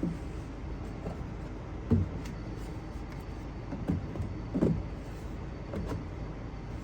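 A few dull wooden knocks and thumps, about five, the loudest about two seconds in and again past the middle, as boards are handled, over a steady low hum.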